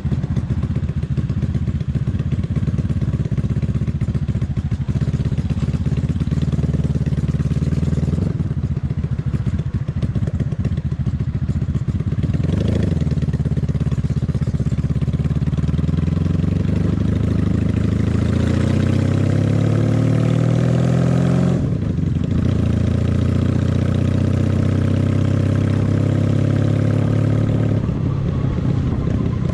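Honda Magna VF750's V4 engine running under way. Its pitch climbs steadily through a long acceleration from about halfway in, then breaks off sharply about three-quarters of the way through as it shifts up and settles at a steady, lower pitch.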